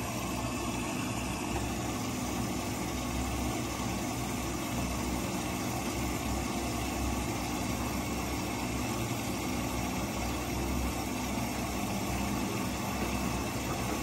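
Old Whirlpool front-loading washing machine filling with water for the wash at the start of its cycle: a steady hum with the even noise of water running in, the drum not yet turning.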